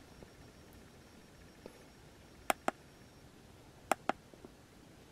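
Buttons on a handheld EDIAG YAWOA YA-101 OBDII scan tool clicking as it is paged through its menus: one faint click, then two quick pairs of sharp clicks, about two and a half and four seconds in.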